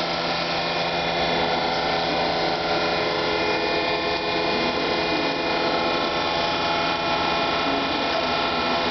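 Shaping-milling machine fitted with a grinding head, running steadily: a constant mechanical hum made of many steady tones, with no pauses or changes.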